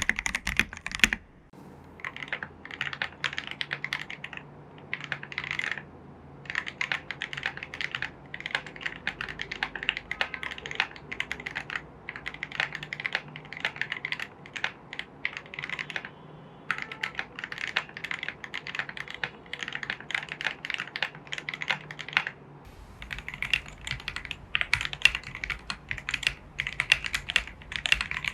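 Typing on an AKKO PC75B Plus mechanical keyboard with lubed Jelly Black linear switches and XDA-profile keycaps: rapid runs of keystrokes with short pauses between bursts.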